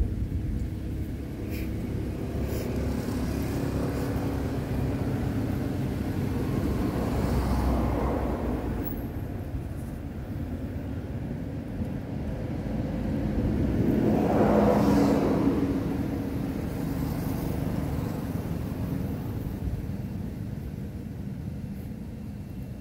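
Low rumble of road traffic, swelling twice as vehicles pass, the louder pass about fifteen seconds in.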